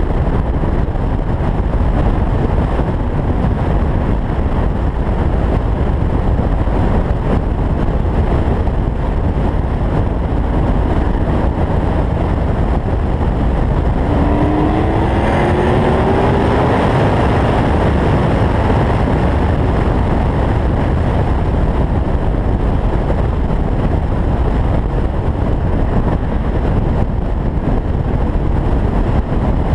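Steady wind and road rush from an open-top convertible cruising at highway speed. About halfway through, a car engine accelerates for a few seconds, its note rising in pitch.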